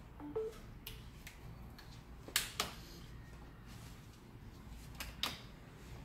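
Two short electronic beeps at different pitches a moment in, then scattered sharp clicks and taps. The loudest come as two quick double clicks, one in the middle and one near the end, over a faint low hum.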